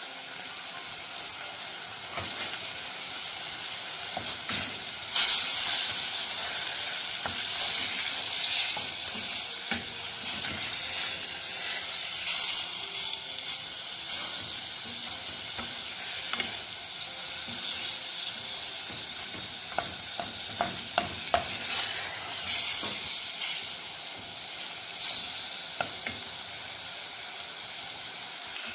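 Chicken breast pieces sizzling as they fry in oil in a stainless steel pot, a steady hiss, while a wooden spoon stirs them and knocks and scrapes against the pot, several knocks coming close together about two-thirds of the way through.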